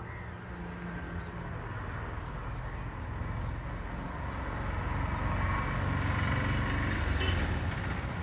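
Steady low vehicle noise from outdoor traffic, an even rumble that slowly grows louder.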